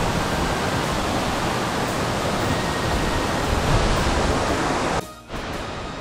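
Waterfall water falling and rushing in a loud, steady wash of noise, which drops away suddenly about five seconds in to a much quieter background.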